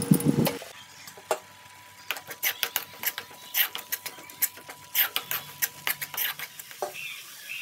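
Steel spoon scraping and tapping against a metal pan as a thick paste of thuthuvalai leaves and tomato is stirred and sautéed in oil: a run of short, irregular scrapes and clicks, several a second. A faint steady tone runs underneath until near the end.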